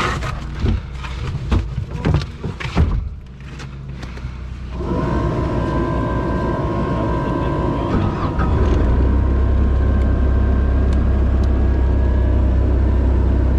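A few clunks and knocks, then a machine engine comes in about five seconds in and runs steadily. It throttles up to a louder, deeper rumble after about eight seconds.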